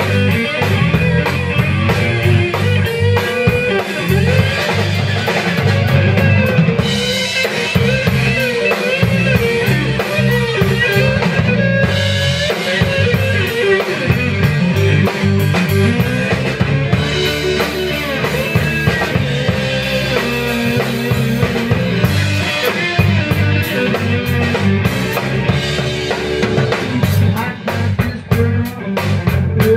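Live rock band playing an instrumental passage: electric guitar over drum kit and bass guitar, with a run of sharp drum hits near the end.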